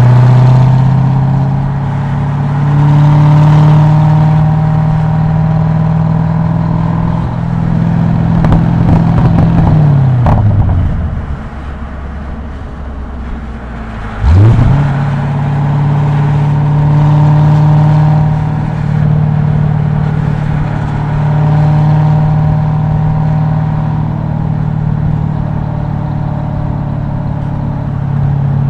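Car engine heard from inside the cabin, running steadily at low revs. About ten seconds in its pitch falls away to near idle as the throttle is lifted. About fourteen seconds in the revs rise sharply and loudly, then the engine settles back into a steady run.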